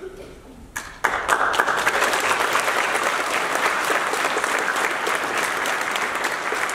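Large audience applauding, breaking out suddenly about a second in and continuing steadily.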